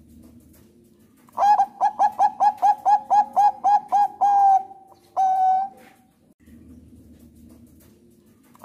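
Zebra dove (Thai 'bangkok' perkutut) singing: a quick run of a dozen or so short clipped coos, about four a second, ending in a longer held note, then a single drawn-out coo about half a second later.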